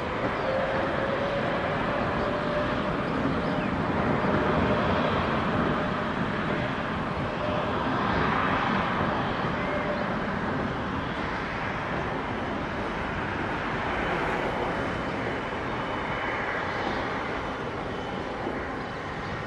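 Boeing 787 airliner's turbofan engines at takeoff thrust during the takeoff roll: a steady, dense rush of jet noise with a faint steady tone through the first half.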